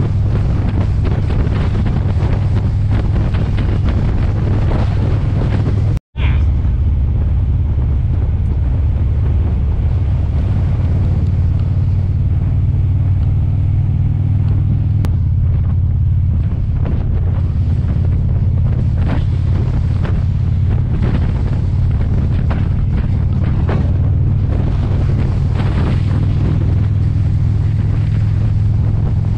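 Motorcycle engine running steadily at cruising speed, with heavy wind noise buffeting the microphone. The sound cuts out for an instant about six seconds in.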